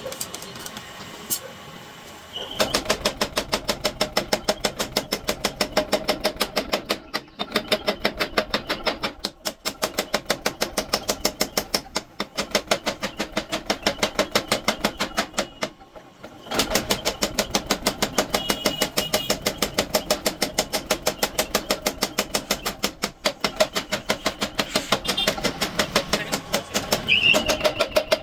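Mechanical power hammer pounding steel in rapid, evenly spaced blows, several a second. The blows start about two and a half seconds in and pause briefly a few times.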